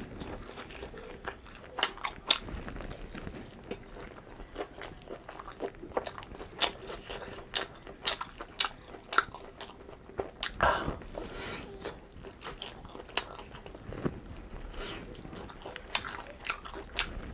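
A person eating fried rice and chicken, with irregular crunching bites and chewing.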